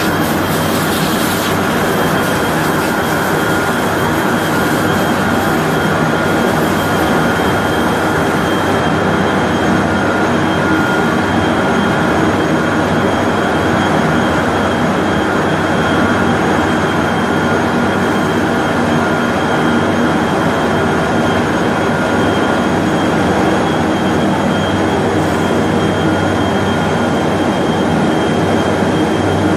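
A 3200 mm copy-paper making machine running: a loud, steady industrial din of turning rolls, cylinders and drives, with a thin steady whine above it.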